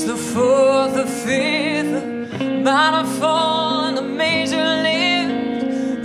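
Live band performing a song: a singer's voice in long phrases with vibrato over electric guitar, bass guitar and drums.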